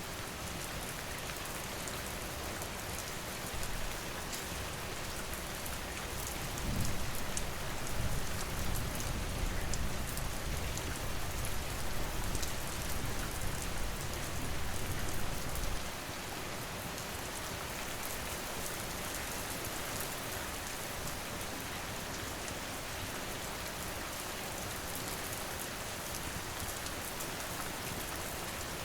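Steady rain falling. About a quarter of the way in a low rumble of distant thunder builds underneath it, swells, and cuts off suddenly a little past the middle.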